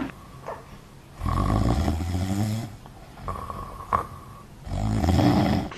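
A woman asleep in bed snoring twice, each snore low and about a second and a half long, a few seconds apart.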